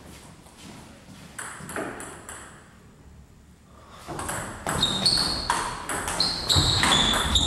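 Table tennis ball bounced a few times before the serve, then a rally: the ball clicks off bats and table at a quick, steady pace, two to three hits a second.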